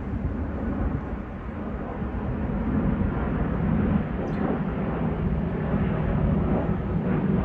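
Jet engines of a Gulf Air Boeing 787 on final approach with its landing gear down, heard from the ground as a steady low rumble.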